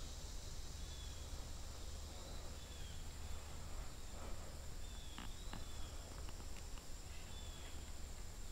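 Quiet summer creekside ambience: a steady high-pitched insect drone, with a few faint clicks and short chirps.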